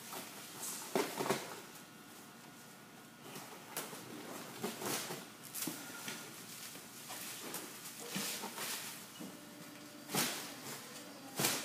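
Rope being pulled around a stack of CRT monitors on a pallet: scattered rubs, scrapes and light knocks, the loudest about a second in and again near the end.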